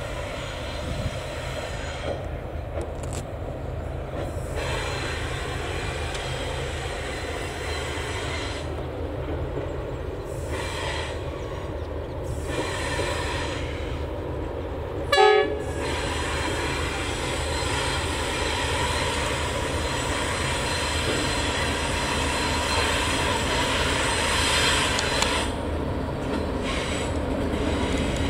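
Diesel locomotives hauling a passenger train across a long steel railway viaduct, a steady rumble that grows slowly louder as the train approaches. About halfway through, the locomotive sounds one short horn blast.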